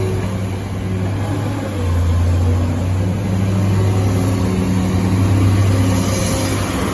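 Diesel engine of a Sany SY215 hydraulic excavator running with a steady low hum, getting louder about two seconds in.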